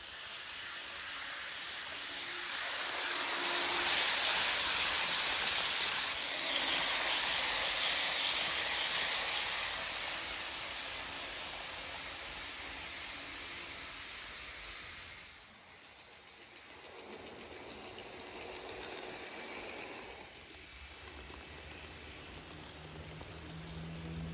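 HO scale model trains running on sectional track: a hissing rumble of wheels and motors. It swells as a train passes close by and drops away sharply about fifteen seconds in, leaving a quieter hum that grows a little near the end.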